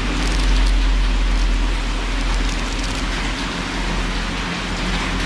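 Steady rushing background noise with a low hum, and brief rustles about half a second in and again around the middle as hands rub and turn the padded fabric rod case.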